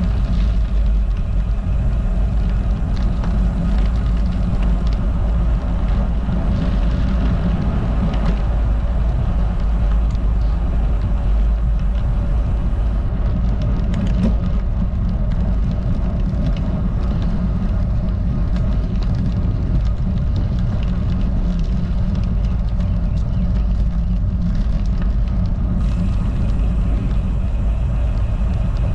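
Steady wind rumble on the camera microphone from riding a road bike at speed, with the tyres rolling on rough asphalt.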